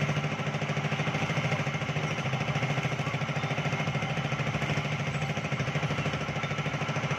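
Arc welding on a motorcycle exhaust pipe, tack welds joining a new header to the original one, over a steady low machine hum with a fast, even pulse.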